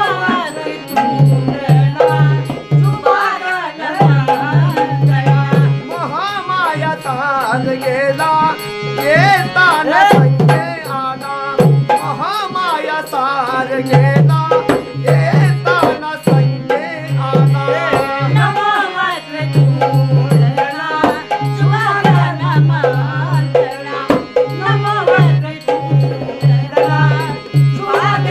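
Male and female voices singing a traditional Marathi tamasha gan, the devotional invocation to Ganesha, accompanied by harmonium and a hand drum keeping a steady rhythmic beat.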